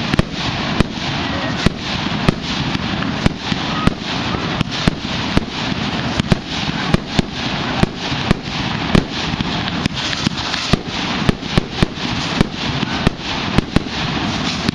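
Fireworks going off in rapid succession: sharp bangs and pops, about three a second and unevenly spaced, over a continuous crackling hiss of burning effects.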